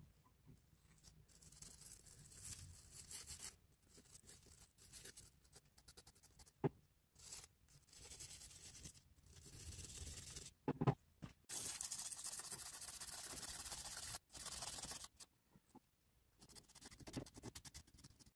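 A brush scrubbing rusty steel pliers halves in a tub of liquid, in bursts of quick scratchy strokes with short pauses. A couple of sharp knocks come around the middle.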